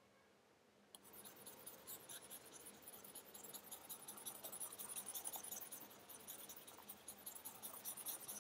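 Faint scratching of a pen stylus drawn in quick strokes across a graphics tablet while painting, starting about a second in.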